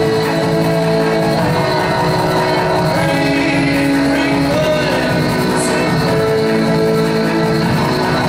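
Live music: amplified violins playing long held notes, each about a second, over a dense, steady lower accompaniment.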